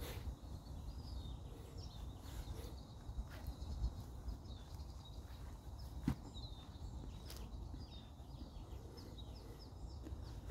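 Outdoor ambience: small birds giving scattered short chirps over a low, steady rumble, with a few sharp clicks.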